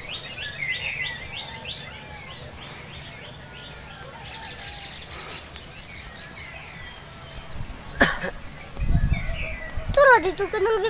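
Steady high-pitched insect chorus, with a bird chirping repeatedly in the first few seconds. About eight seconds in there is a sharp click and a brief low rumble, and a voice comes in near the end.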